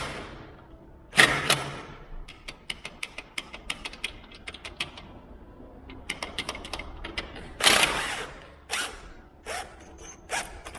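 Metal hardware on an aluminium door being worked by hand: runs of quick metallic clicks, with a louder ringing clank about a second in and two more near the end, as a flush bolt that is still a little loose is checked.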